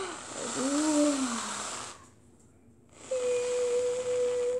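Aerosol can of whipped cream spraying with a hiss, in two bursts with a pause of about a second between them.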